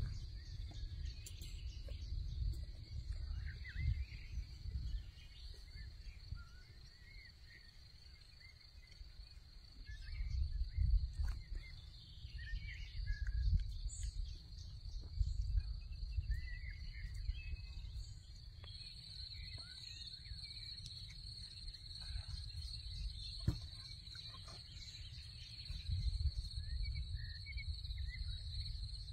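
Rural outdoor ambience: a steady high insect drone that grows louder about two-thirds of the way through, scattered bird chirps, and a low rumble that swells and fades, strongest about ten to sixteen seconds in.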